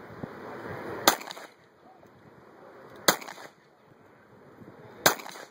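Three single shots from a Glock 19 9mm pistol, fired slowly about two seconds apart, each a sharp crack with a short echo.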